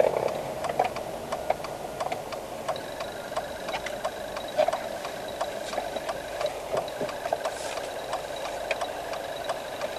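Car's turn-signal indicator clicking steadily in the cabin, about two clicks a second, over the low hum of the engine as the car slows to a stop.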